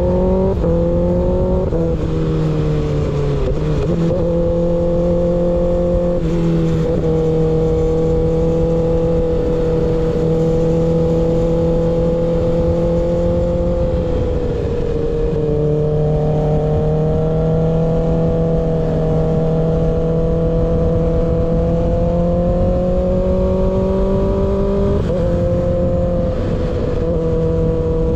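Kawasaki ZX6R inline-four running through an un-baffled M4 GP19 slip-on exhaust while riding. The revs climb and drop sharply with upshifts in the first couple of seconds, then hold a steady cruise with small changes. They sag briefly midway, rise slowly, and drop again near the end.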